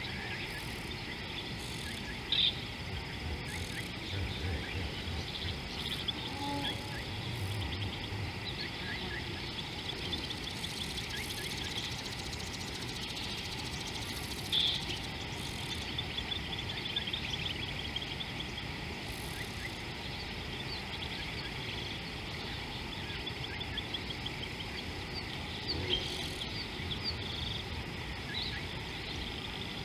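Steady chorus of insects chirring and chirping in the bush, with rapid repeated pulses, broken by three brief louder sounds a few seconds in, midway and near the end.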